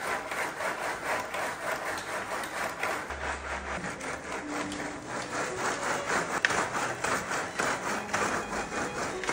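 Sugar-coated puffed rice balls rolling and rubbing in a split-bamboo trough as it is rocked back and forth by hand, a steady rhythmic rattling rasp of many quick strokes.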